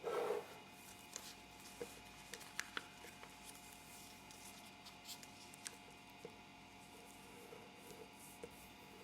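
Square origami paper being handled and folded by hand: a short rustle at the start, then soft scattered creasing clicks and taps over a faint steady hum.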